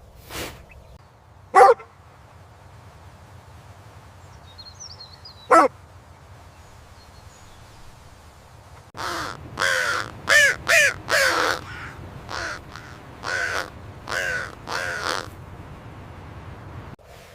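An animal calling: two single short calls, then a quick run of about ten short calls in the second half.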